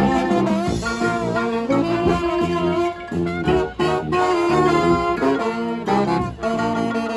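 Brass band playing live, saxophone and brass horns carrying the tune, with short breaks between phrases about three and six seconds in.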